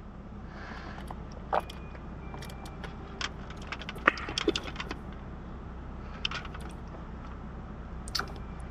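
Scattered light clicks and knocks from a plastic protein shaker bottle being drunk from and handled, over a steady low hum in a car's cabin.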